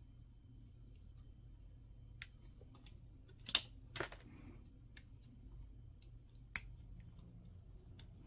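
Hobby nippers snipping plastic model-kit parts off their runner: a few sharp, separate snips, the loudest two about 3.5 and 4 seconds in, with softer clicks of plastic being handled between them.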